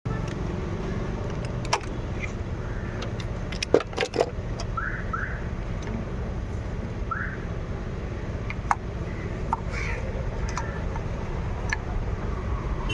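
Car engine idling with a steady, slightly uneven low rumble. A few sharp metallic clicks of tools sound over it.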